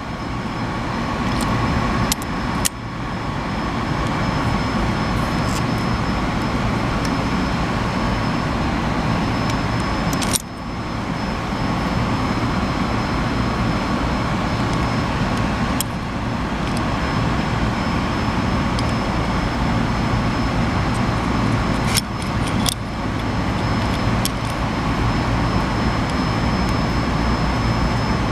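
Steady mechanical hum and rushing noise with a couple of faint steady tones, broken a few times by brief clicks and knocks.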